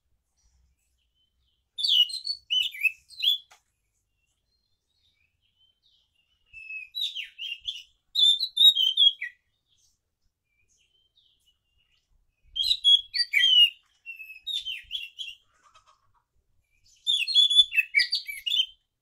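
Caged anis macan thrush singing in four bursts of quick, varied chirping phrases, each a second or three long, with short pauses between them.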